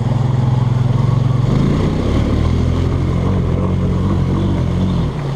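ATV (four-wheeler) engine running as it is ridden. Its pitch is steady at first, rises and wavers from about a second and a half in, then drops back near the end.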